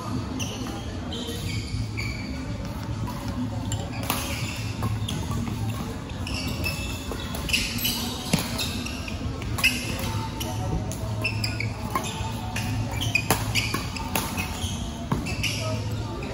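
Badminton rally: sharp racket strikes on the shuttlecock at irregular intervals, with sneakers squeaking briefly on the court floor between shots, in a large echoing hall.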